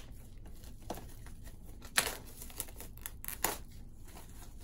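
Plastic shrink wrap being torn and peeled off a Blu-ray steelbook case, crinkling irregularly with a few sharp crackles, the loudest about two seconds in.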